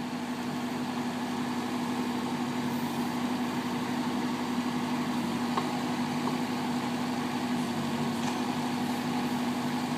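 Mini excavator engine running steadily with an even hum.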